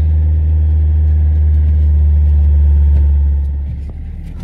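Truck engine running, heard from inside the cab: a loud, steady low drone that falls away sharply about three and a half seconds in.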